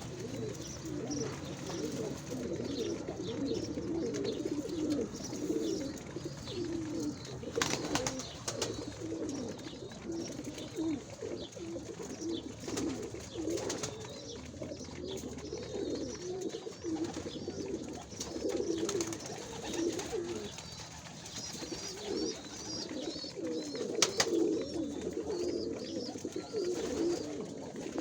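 Many pigeons cooing at once, their low, overlapping coos running on without a break, with a few faint higher chirps and a couple of sharp knocks.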